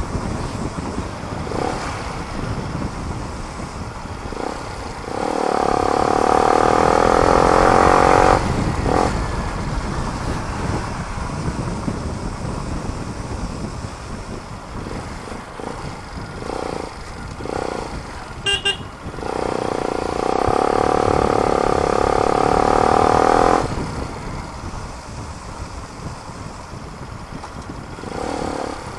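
Motorcycle with a new muffler riding along, its engine and wind noise running steadily. Twice a loud held pitched tone rises over it for three to four seconds, the first about five seconds in and the second about twenty seconds in, with a brief beep just before the second.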